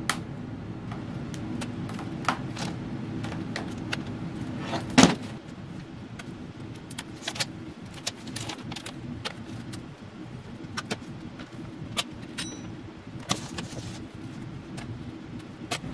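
Dell XPS 13 2-in-1 laptop's bottom cover being pried off with a small pry tool along its seam: a scattered run of sharp clicks and snaps as the internal clips let go, the loudest about five seconds in.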